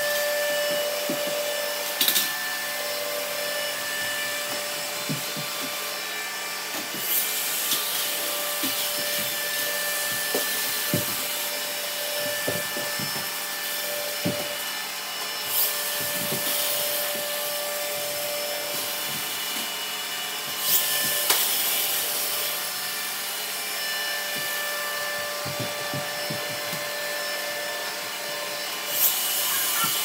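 Several robot vacuums running at once on a hardwood floor: a steady whirring hiss with a held motor whine. About five sharp knocks and clatters cut through it along the way.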